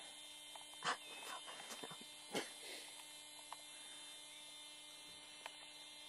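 A quiet steady electrical hum, with several sharp knocks and clicks over it. The loudest knocks come about a second in and about two and a half seconds in, and there are a few softer ones later.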